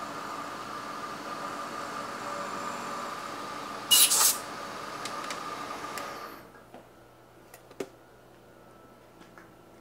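Milling machine spindle running with a steady whine, then a short, loud hiss of compressed air from a blow gun about four seconds in. The spindle shuts off around six seconds in, leaving a few light clicks.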